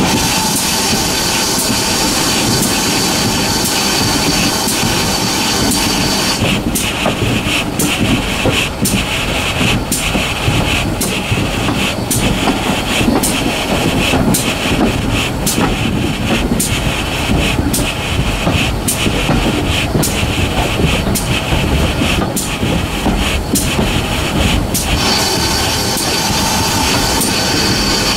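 Riding in a carriage behind Great Western small Prairie tank locomotive 5521 on the move: steady train running noise with repeated clicks of the wheels over rail joints. A steady high hiss rides over it for the first six seconds or so and again near the end.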